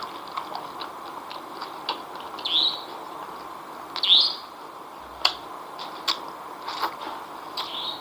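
Close-miked mouth sounds of a person eating spicy chicken feet and fried noodles by hand: wet lip smacks and clicks scattered throughout, with two short squeaky sucking slurps about two and a half and four seconds in, the second the loudest.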